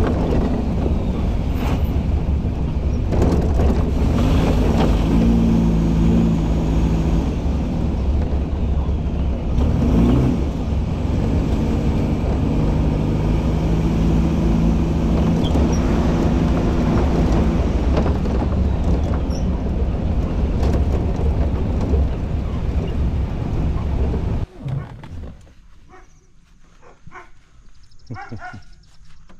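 A motor vehicle's engine running steadily, cutting off abruptly about 24 seconds in, followed by a few light clicks and knocks.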